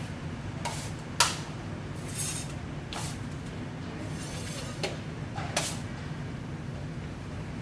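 Drywall knife scraping and clicking as joint compound is worked onto a column corner: about seven short scrapes and taps, the sharpest about a second in, over a steady low hum.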